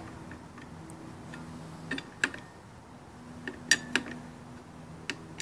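Socket wrench working the clutch spring bolts on a Kawasaki KLX140: about ten sharp metallic clicks and ticks, spaced irregularly, as the bolts are backed off a little at a time against the clutch spring pressure.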